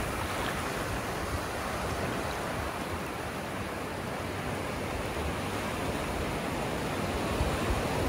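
Ocean surf washing on the beach, a steady, even rush of water noise.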